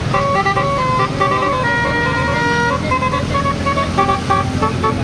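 Basuri telolet musical horn on a bus playing a tune: several horn tones sound together and step from note to note, over a low engine rumble.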